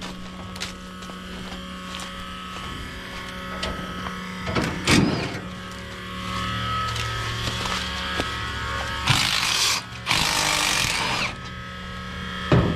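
A machine running with a steady hum, broken by a short loud sound about halfway through and two loud hissing bursts of about a second each near the end.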